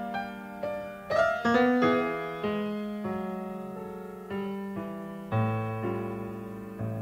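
Slow piano music: notes and chords struck one after another and left to ring and fade.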